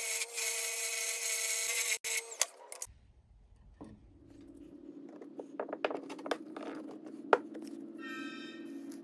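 Wood lathe spinning a purpleheart blank while a hand-held turning tool cuts it: a loud steady cutting hiss over the lathe's steady hum, which stops suddenly about two seconds in. After that come faint clicks over a low steady hum, and music starts near the end.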